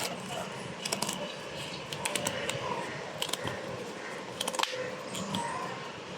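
Sharp clicks and crinkles of snack packaging being handled and opened, in short crackling runs about once a second.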